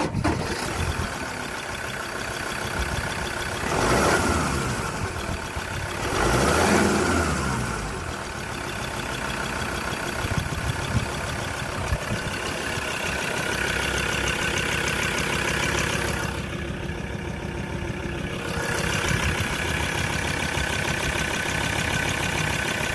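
2014 Ford Ranger's Duratorq TDCi turbo-diesel engine running steadily at idle. It is revved up and let fall back twice, about four seconds in and again at about six and a half seconds.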